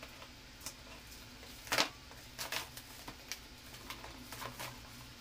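Scissors cutting and plastic wrapping crinkling as a toy box is unwrapped: scattered short snips and rustles, the loudest about two seconds in.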